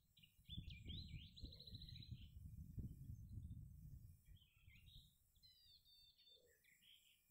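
Near silence: faint bird chirps and short trills over a low rumble of background noise, the rumble fading out about halfway through.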